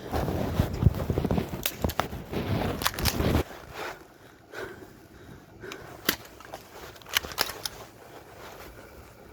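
Close rustling and scuffling movement for about three and a half seconds, then scattered single sharp clicks.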